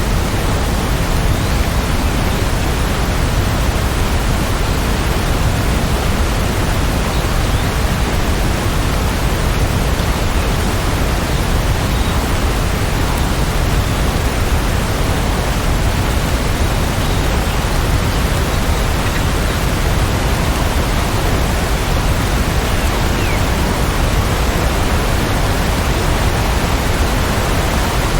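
Steady rain: a dense, even hiss that does not change.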